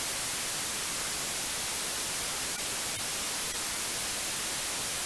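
Steady hiss of static, strongest in the treble, with a few faint clicks about halfway through.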